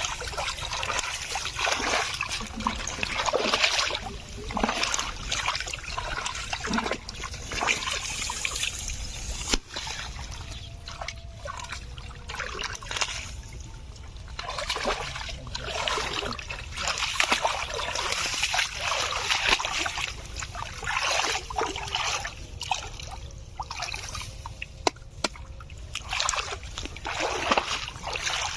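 Water splashing and trickling in irregular bursts, as if stirred by hands or feet in shallow water, with a few sharp knocks about ten seconds in and again near the end.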